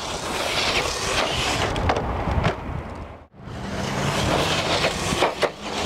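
Traxxas TRX4 radio-controlled crawler driving over rough rock and sand: tyres scrabbling with scattered clicks and knocks. The sound drops out for an instant about three seconds in.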